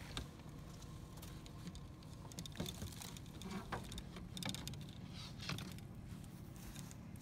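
Light, irregular clicks and rattles of a recurve bow and arrows being handled and lifted out of a pickup bed, over a steady low rumble.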